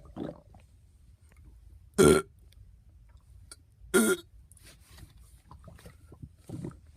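A person belching twice: two short, loud burps about two seconds apart, with fainter sounds near the start and near the end.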